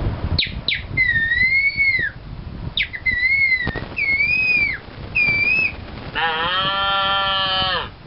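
A man whistling bird calls through his fingers: a few sharp upward whistles, then four wavering whistled calls that rise and fall. Near the end comes one long, steady, throaty call, a vocal imitation of an animal.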